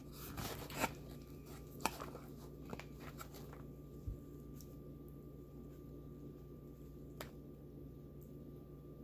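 Close-miked eating sounds from a McDonald's Big Mac: a few seconds of crisp crackling with sharp clicks, then quieter, with a dull thump about four seconds in and one more click near the end.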